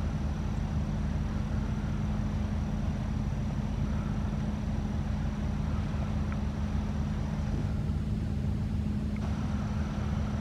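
Steady low engine hum, an unchanging drone with a stack of deep overtones.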